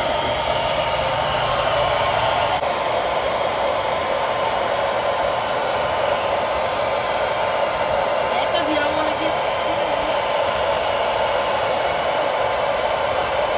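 Handheld hair dryer running steadily, blowing hot air at close range onto a row of crayons to melt the wax.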